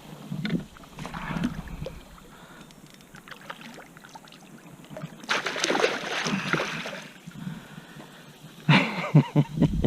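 Water splashing and sloshing around a kayak, loudest for about two seconds in the middle, followed near the end by a quick run of sharp knocks.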